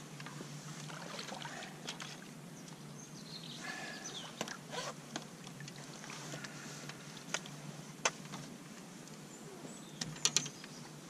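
Carp splashing in a landing net at the water's edge as the net is drawn in and lifted, water dripping, with scattered light knocks and taps. A quick cluster of sharp taps near the end as the net is set down on the bank.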